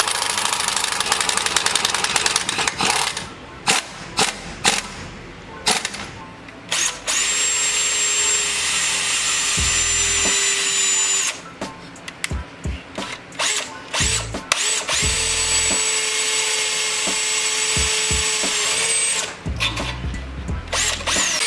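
Power tool running in several steady bursts of a few seconds each, with clicks and knocks of metal parts being handled between them. It is fastening the mounting hardware of a wheel-light ring at a truck's front hub.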